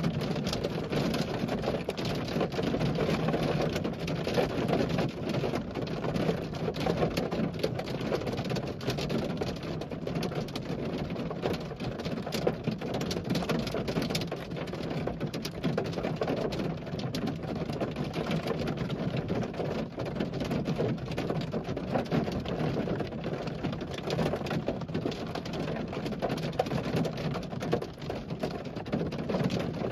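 Heavy rain of very large raindrops, not hail, falling in a dense steady patter of drops hitting close by.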